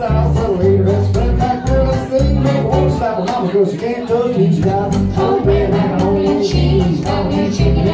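A string band playing live: plucked upright bass walking a steady rhythm under banjo, strummed acoustic guitar and fiddle, with a voice singing.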